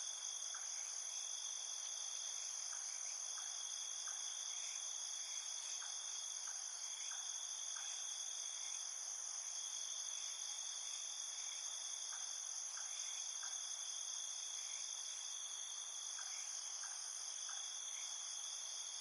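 Tropical jungle night ambience: a dense, steady chorus of crickets and other insects in two high-pitched layers. Over it comes a scattering of short chirps repeated at irregular intervals.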